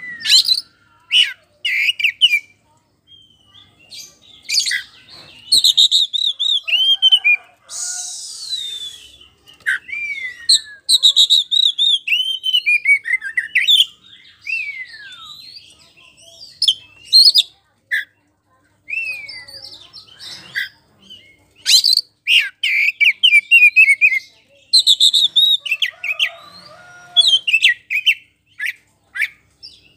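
Oriental magpie-robin in full song: loud phrases of varied whistles, chirps and quick falling and rising slurs, one after another with short pauses, and a short harsh rasping note about eight seconds in.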